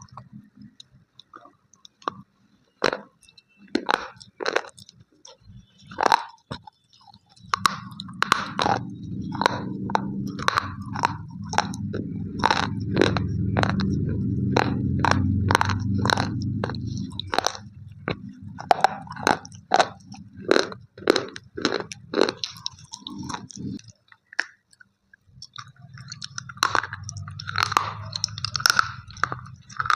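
Slate pencils being bitten and chewed close to the microphone: a long run of sharp, brittle crunches at an uneven pace. A low rumble runs under the crunching for much of the middle and again near the end.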